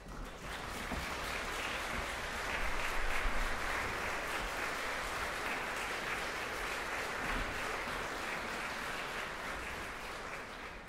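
Concert audience applauding in a hall, swelling about three seconds in and dying away near the end.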